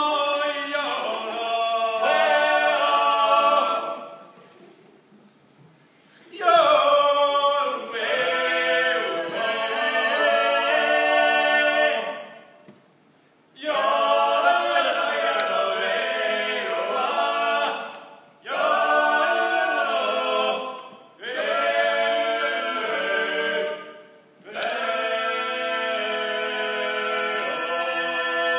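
A woman and two men singing together unaccompanied, in sung phrases broken by short pauses.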